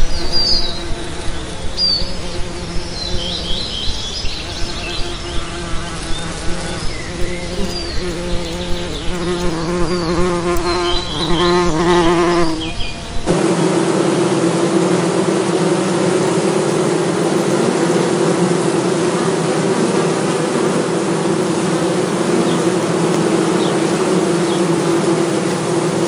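Bees buzzing: at first a pulsing drone that swells about twice a second, with faint high chirps above it. About halfway through it cuts abruptly to a denser, steadier buzz.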